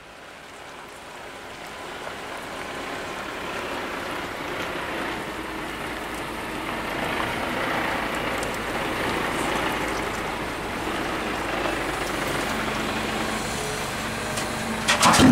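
Volvo EC210CL crawler excavator's diesel engine working steadily while it swings a loaded bucket of concrete pieces over a truck bed. Right at the end, the first pieces crash down into the truck's steel bed.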